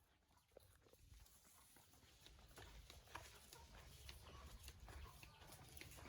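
Near silence, with a faint low rumble and scattered faint ticks.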